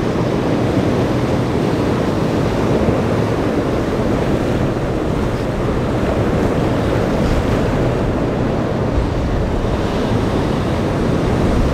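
Steady rush of surf and boat wake spray with wind buffeting the microphone, over a low steady drone from the passing boats' engines.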